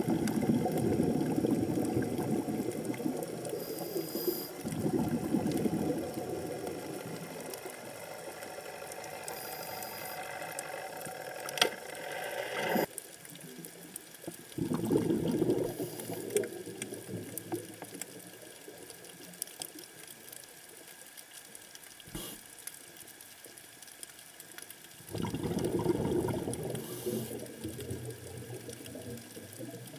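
Underwater sound on a coral reef: a steady crackle of fine clicks, typical of snapping shrimp, broken by several rushes of a scuba diver's exhaled bubbles, roughly every ten seconds.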